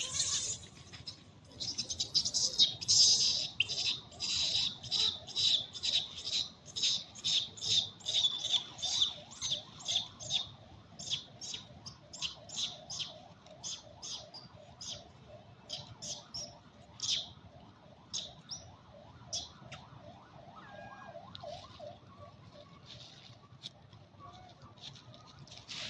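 An animal calling: a long run of short, shrill, high-pitched calls, about two a second, loudest in the first half and thinning out after about eighteen seconds. A fainter, lower repeated call runs beneath from about ten seconds in.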